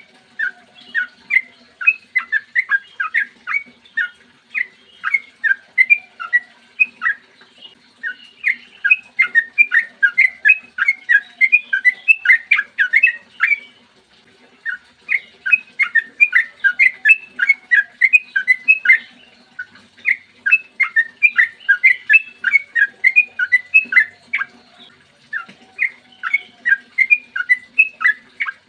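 Sooty-headed bulbul singing long runs of rapid clear whistled notes, about four a second. The runs break off in short pauses every five or six seconds.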